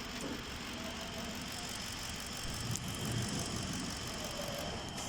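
Ford Expedition's engine idling steadily while its misfire is being traced.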